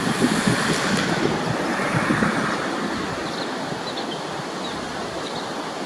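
Steady rushing outdoor noise with an uneven low rumble, fading somewhat after the first couple of seconds, and a few faint short high chirps about halfway through and near the end.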